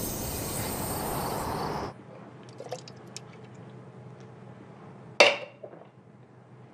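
A steady loud rushing noise that cuts off abruptly about two seconds in. Then a few small clicks and liquid sounds of someone drinking from a metal drink can, and one sharp clink a little after five seconds as the can is set down on a tile floor.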